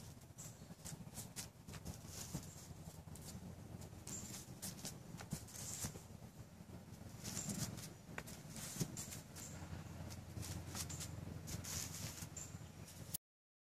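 Outdoor yard ambience: scattered faint clicks and rustles, short high-pitched chirps that come and go, and a low steady hum. The sound cuts off suddenly about 13 seconds in.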